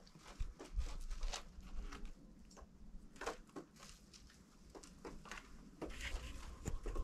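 Slow, careful footsteps: faint, irregular soft clicks and scuffs, with a low rumble near the end.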